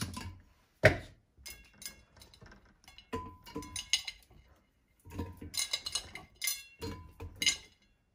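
Pieces of onion, garlic and red bell pepper dropped by hand into a glass blender jar: a sharp knock about a second in, then scattered taps and short ringing clinks of glass and a china plate.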